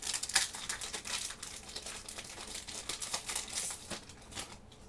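Foil wrapper of a Magic: The Gathering booster pack being torn open and crinkled by hand: dense crackling that thins out near the end.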